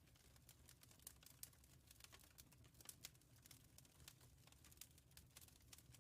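Wood fire crackling in a fireplace: a quiet run of irregular small snaps and pops over a faint low rumble.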